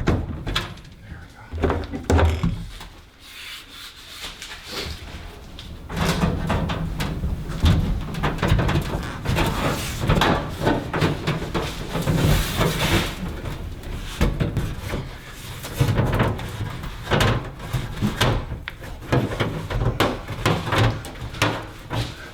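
Workshop clatter: many irregular knocks, bangs and rubbing as parts are handled and fitted. Quieter for the first few seconds, then dense and loud from about six seconds in.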